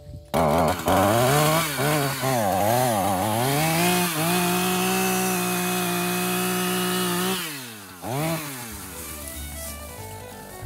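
Two-stroke chainsaw revved up and down several times, then held high and steady at full throttle for a few seconds before dropping back to a quieter, lower running sound near the end.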